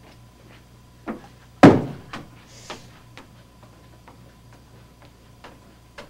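A single heavy thump, the loudest sound, a little under two seconds in, with a softer knock just before it and a few lighter knocks and taps after. A steady low hum runs underneath.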